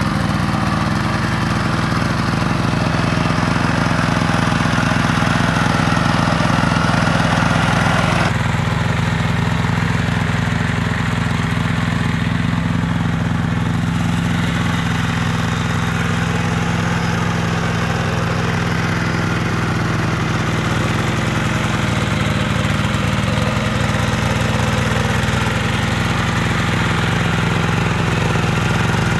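Horizontal single-cylinder Yanmar diesel engine of a hand tractor running steadily while it drives the rotary tiller through paddy mud. The sound changes abruptly about eight seconds in.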